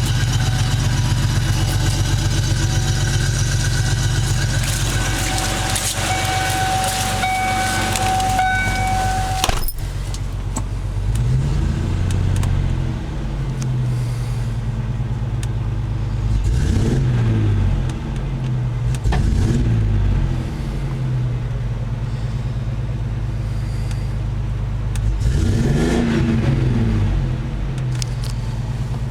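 1994 Ford Mustang's 3.8-litre V6 running with a misfire, later traced to a vacuum leak and faulty ignition parts. It idles steadily at first, then is revved in four short blips, each rising and falling in pitch. A single sharp click comes about a third of the way in.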